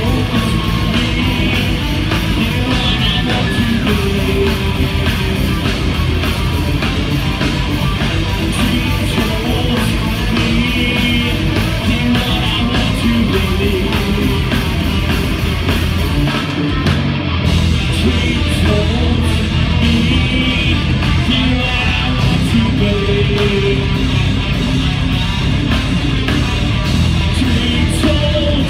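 Live heavy metal band playing loud: distorted electric guitars, bass guitar and dense drumming, with a vocalist over the top.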